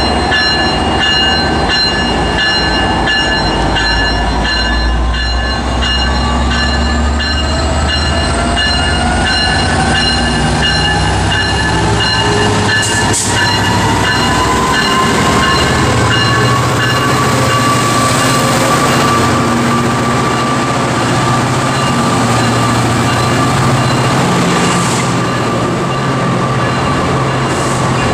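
Amtrak EMD F59PHI diesel locomotive rolling slowly through the platform at the head of its train, its bell ringing in steady strokes for the first several seconds. Under the bell are the diesel engine's rumble and a whine that climbs gradually in pitch, and then the rumble of the passenger cars going by, with a few wheel clicks.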